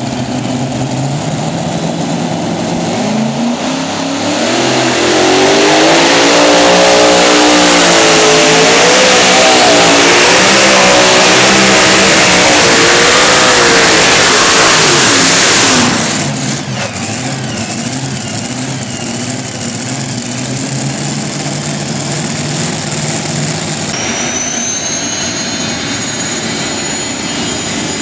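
Modified pulling tractor's engines running at the line, then revving up and running flat out for a pull of about ten seconds, the pitch rising and wavering under load, before being cut back suddenly to a lower run. A high steady whine joins near the end.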